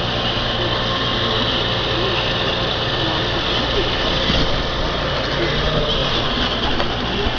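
iRobot Roomba 550 Pet Series robot vacuum running: a steady whir of its motor and brushes with a high-pitched hiss.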